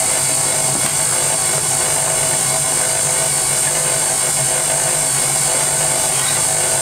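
KitchenAid Artisan stand mixer running steadily at low speed, its flat beater working flour into cookie dough: an even motor hum with a constant high whine.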